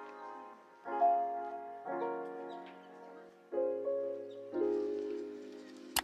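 Background music: chords struck about once a second, each dying away, with a sharp click right at the end.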